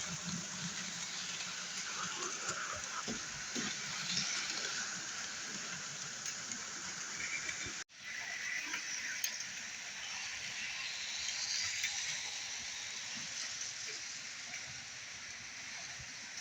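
Hornby OO gauge model diesel locomotives running on track: a steady whirring hiss of motors and wheels on the rails, with light ticks. The sound cuts out briefly about eight seconds in.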